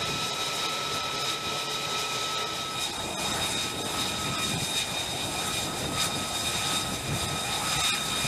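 F-35C stealth fighter's Pratt & Whitney F135 jet engine running: steady jet noise with a high, steady whine.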